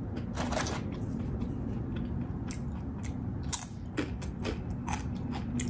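Close-up chewing of crunchy tortilla chips: a run of irregular, crisp crunches.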